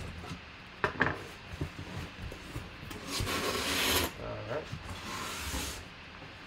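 Cardboard box being opened by hand: a couple of sharp knocks, then the cardboard flaps rubbing and scraping open, with a long rasp about three seconds in and a shorter one a second later.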